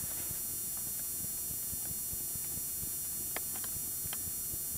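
Steady hiss and low rumble, with a few light clicks about three and a half to four seconds in.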